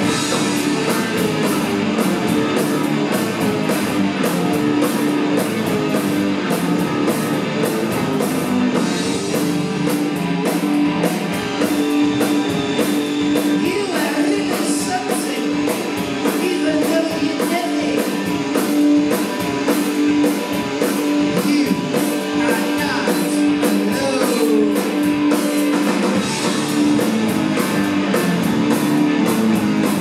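Punk rock band playing live: electric guitars, a drum kit keeping a steady beat, and a keyboard.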